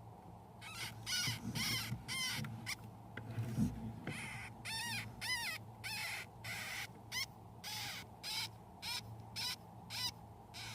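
Week-old golden hamster pups crying: a rapid series of short, high-pitched squeaks, about two a second, some rising and falling in pitch.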